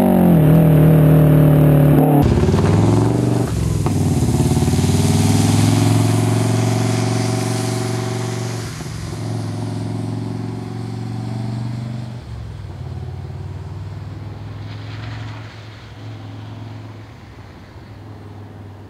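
Subaru Legacy B4 RSK's twin-turbo 2.0-litre boxer engine through a straight exhaust with one rear muffler, pulling hard with the note dropping back a few times between gears. It fades steadily as the car drives away.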